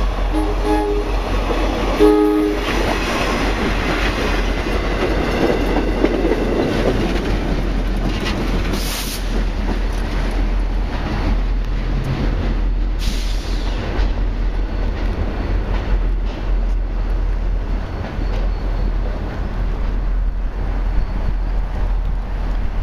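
NJ Transit commuter train, led by a cab control car, giving two short horn blasts in the first few seconds, then passing with steady wheel-on-rail noise that is loudest a few seconds in and slowly eases.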